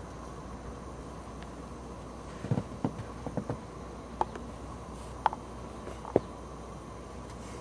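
Footsteps crunching in fresh snow: a quick run of short crunches about two and a half seconds in, then single sharp crunches spaced about a second apart, over a steady hiss.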